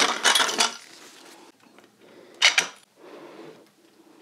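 Clatter and clinks of a paper backdrop roll being fitted onto its metal backdrop support stand: a rattling burst at the start and one short sharp clack about two and a half seconds in.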